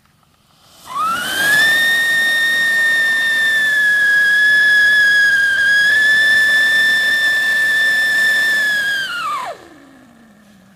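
Sunshine 'Siren' whistling fountain firework (anar) giving a loud, really fearsome whistle. The pitch sweeps up as it catches about a second in and holds steady for about eight seconds while it sprays sparks. Near the end it slides down in pitch and dies away as the whistle composition burns out.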